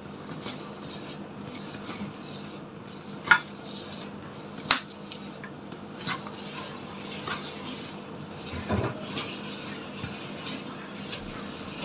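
Grated raw potato, flour and spices being mixed together by hand in a bowl: a soft continuous rubbing, with two sharp clicks against the bowl about three and five seconds in and a brief louder knock near the end.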